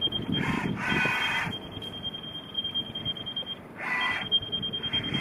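Steady high-pitched warning buzzer of a JMG MC 32S battery-electric mini crane while it drives, cutting out briefly a little past the middle, with a few short bursts of machine noise.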